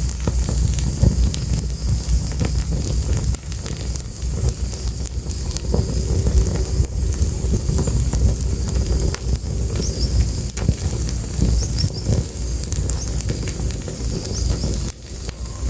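Wood fire crackling, with many small sharp pops over a steady low rumble. Faint short high chirps come a few times in the second half.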